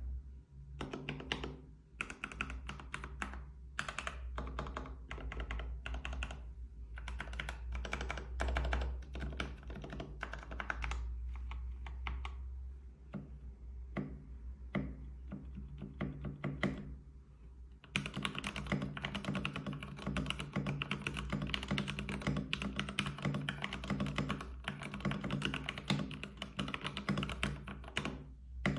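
Typing on an aluminum-frame Keychron K6 mechanical keyboard with Gateron G Pro Brown switches and Honey Milk PBT XDA-profile keycaps. The keystrokes come in bursts with short pauses, then turn into fast, unbroken typing about two-thirds of the way in.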